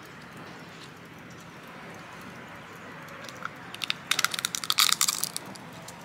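Fried yam chips crunching as they are bitten and chewed: a rapid run of crisp cracks starting about three and a half seconds in and lasting about a second and a half, over a steady faint hiss.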